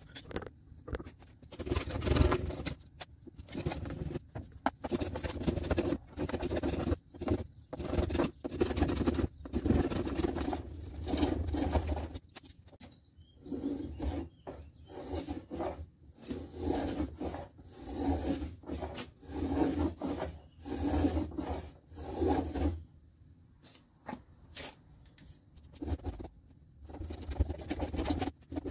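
A hand tool rasping and shaving along the curved edge of a pecan board in repeated hand strokes, shaping the edge of a pizza peel. The strokes come close together at first, then settle to about one a second, with a short pause near the end.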